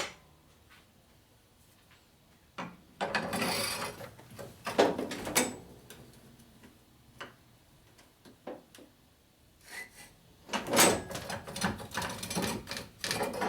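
Knocks and clatter of metal tools and parts being handled, in two irregular spells with scattered single clicks between.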